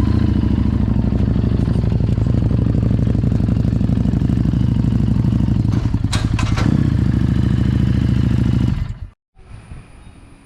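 Harley-Davidson Street 750's V-twin engine running steadily, with a few clattering knocks about six seconds in. The sound cuts off abruptly about nine seconds in. The owner says this engine is misfiring.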